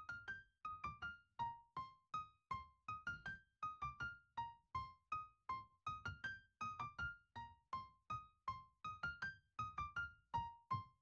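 Background music: a light melody of short, quickly fading keyboard notes, about three or four a second, with brief gaps between them.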